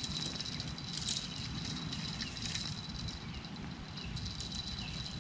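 Wind rumbling on the microphone while a spinning reel is cranked in short spells of ticking as a hooked carp is played. A steady thin high whine runs underneath.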